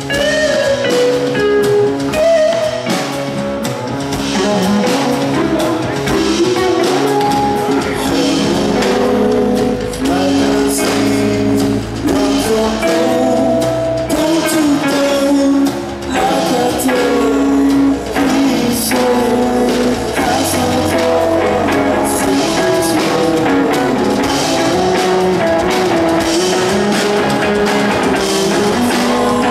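Live rock band playing loud: an electric guitar through Mesa amplifiers with a drum kit, the guitar line moving up and down in pitch over steady drumming.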